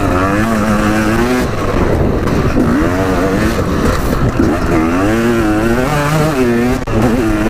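Dirt bike engine revving up and down as it is ridden, its pitch rising and falling several times with the throttle.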